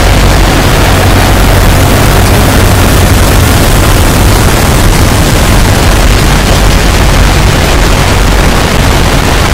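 A loud, steady wall of distorted noise with a heavy low rumble, no pauses or changes.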